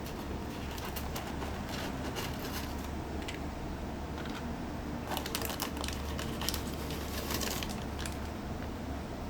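Hands unpacking a die-cast toy vehicle from its box: scattered light clicks and plastic rustling, busiest about five seconds in and again around seven seconds, over a steady low hum.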